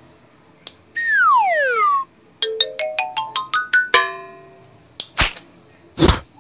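Cartoon sound effects: a whistle sliding down in pitch for about a second, then a quick rising run of about nine plucked notes ending on a ringing note, then two short whooshes.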